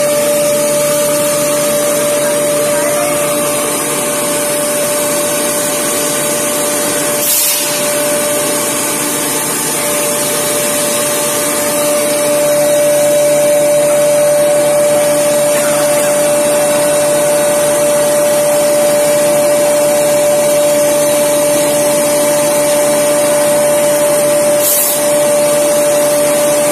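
Automatic dry ginger grinding plant running steadily: its vibratory feeder bowl and chute feed ginger pieces to the grinder, giving a loud, even machine drone with a constant whine over it. Two short clicks, about seven seconds in and near the end.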